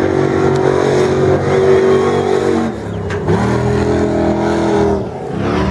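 Trophy Truck Spec race truck engine accelerating hard, revving up and holding, then dropping in pitch and climbing again twice, about three seconds in and near the end, as it shifts up through the gears.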